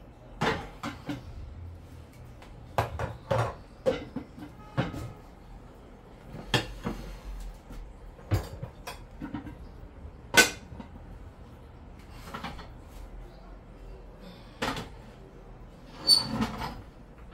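Metal serving spoon and pot lids clinking, scraping and knocking against cooking pots and plates: a dozen or so separate clatters, the sharpest about ten seconds in and a longer clatter near the end.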